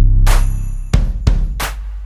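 Background music with drums and a heavy bass beat.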